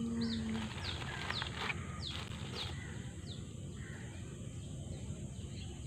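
A bird calling in a run of short, high, falling notes, about two a second, fading out a little past halfway, over a steady low outdoor background noise. A steady low tone sounds briefly at the start.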